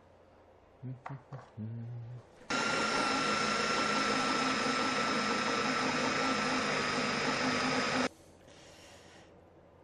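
Electric drill running steadily at one pitch for about five and a half seconds, then stopping suddenly, as it bores a hole in a scooter fork with a blunt, worn drill bit.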